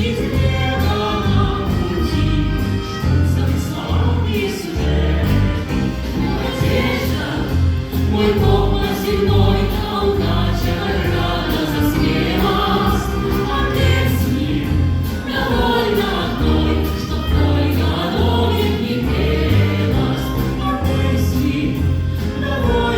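Live music: a vocal group singing together over an instrumental ensemble, with a steady pulsing bass line underneath.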